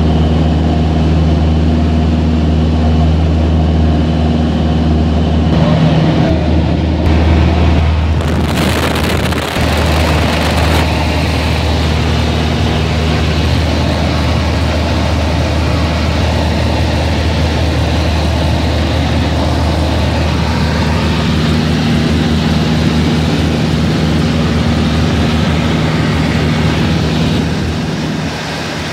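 Light aircraft's piston engine and propeller droning steadily, heard from inside the cockpit with a rush of air. About eight seconds in, a louder, hissing rush lasts a few seconds, then the steady drone carries on.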